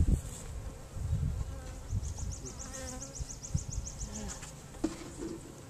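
Honey bees buzzing in and around an open hive crowded with newly installed package bees. A rapid high ticking runs briefly, starting about two seconds in.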